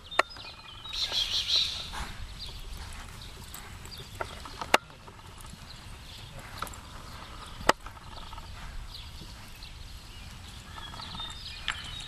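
Horse and calf hooves moving over soft arena dirt, with three sharp clicks, the loudest about five seconds in.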